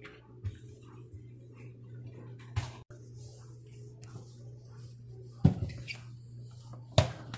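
Cloth wiping a granite countertop by hand in rubber gloves, with three sharp knocks about 2.5, 5.5 and 7 seconds in as things are moved on the stone; a steady low hum runs underneath.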